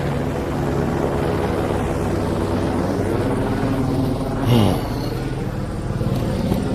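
Steady engine drone, with a louder pass-by about four and a half seconds in whose pitch sweeps downward.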